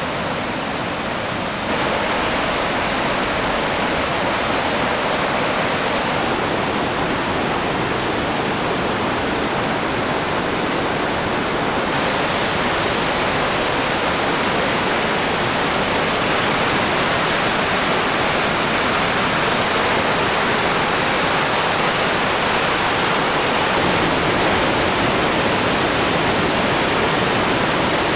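Loud, steady rush of floodwater from the swollen Bourne torrent and a waterfall pouring over the road, growing louder about two seconds in.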